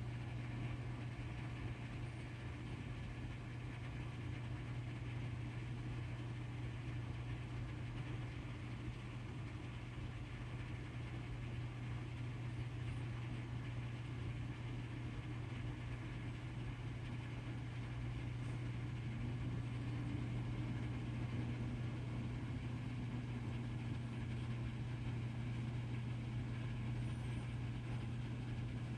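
Steady low hum, with a faint fainter tone rising and then slowly falling about twenty seconds in.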